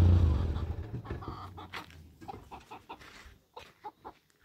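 A motor vehicle's low engine hum fades away over the first second, then chickens cluck in short, scattered calls.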